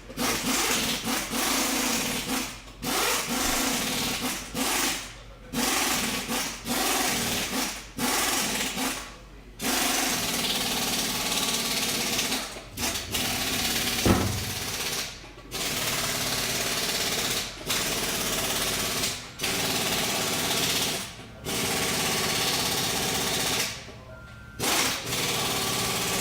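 A motorised tool or machine running in repeated runs of one to two seconds, with short breaks between them.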